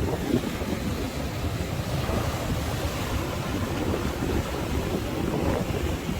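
Sea waves washing and surging, with wind buffeting the microphone.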